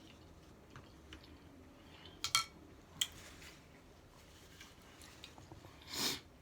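Light clinks of eating utensils against a dish: a quick double clink a little over two seconds in and a single one at three seconds. A short soft rush comes near the end.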